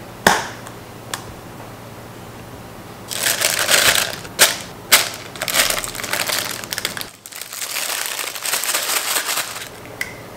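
Spatula scooping thick whipped cream and pressing it into a plastic piping bag, the bag crinkling in rough stretches, with a few sharp taps along the way.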